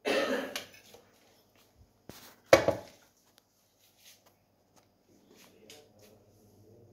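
Kitchen handling sounds: a short scrape at the start, one sharp knock about two and a half seconds in, then faint scraping and clicks of a measuring spoon working in a plastic bowl of flour.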